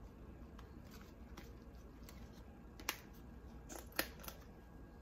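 Faint clicks and light taps of an Old Bay seasoning tin being shaken over a bowl and handled, with two sharper clicks about three and four seconds in.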